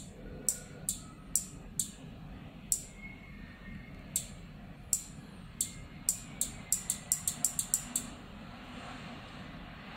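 Single-channel relay module clicking on and off as the homemade oil sensor is pressed and released: sharp clicks about two a second, quickening into a rapid run near the end before stopping. A steady low hum sits underneath.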